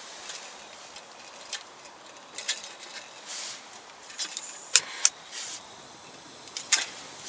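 A small camping gas stove under a kettle being lit: scattered clicks and taps of the valve and a long-nozzle lighter, with short hisses of gas. The burner catches near the end.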